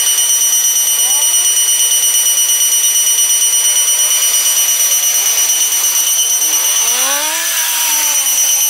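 A steady, high-pitched electronic warning alarm pulsing rapidly as a train arrives. In the last couple of seconds a metallic squeal rises and falls from the arriving train.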